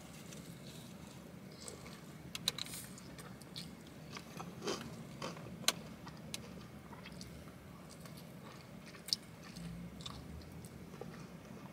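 Close-up mouth sounds of eating a fried chicken hot wing off the bone: quiet biting and chewing, with a few sharp clicks scattered through.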